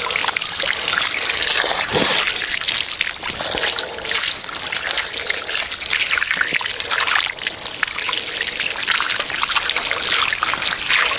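A stream of running water pouring and splashing over a whole plucked chicken as hands rub it clean, the water spattering off onto the ground.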